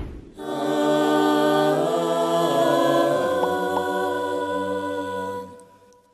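Music: a sustained wordless choir-like chord whose notes shift about two seconds in, fading out near the end. A short whoosh swells in at the start.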